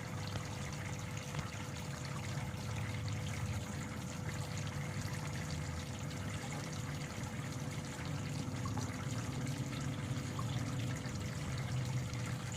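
Water running steadily in an aquaponic setup, trickling and pouring as the pumped flow returns through the channels, with a faint steady hum underneath.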